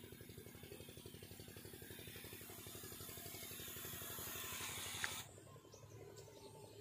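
Backpack crop sprayer at work: the fast, even pulsing of its pump under the hiss of the spray, which grows louder as it comes closer. About five seconds in the sound breaks off after a click, leaving only a much fainter background.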